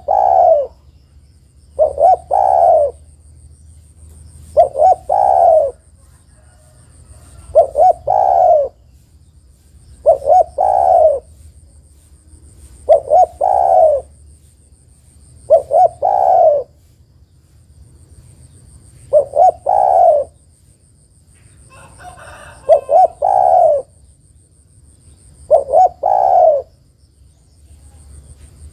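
Female spotted dove cooing: a phrase of two short notes followed by a longer note, repeated about every three seconds, nine times. A faint steady high whine comes and goes between the calls.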